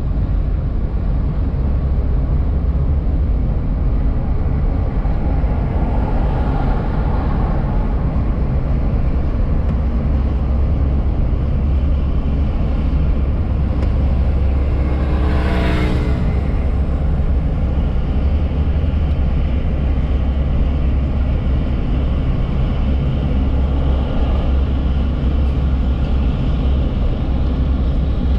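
Steady low rumble of a car's engine and tyres on the road, heard from inside the cabin while driving. A brief louder sweep of noise comes about halfway through.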